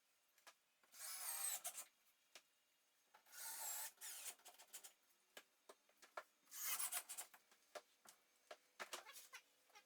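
Three separate scraping strokes of a hand tool, each about a second long with a squeaky edge, and light clicks and taps between them.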